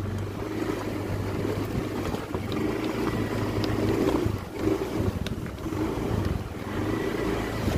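Motor scooter engine running steadily at low speed while riding, with wind noise on the microphone.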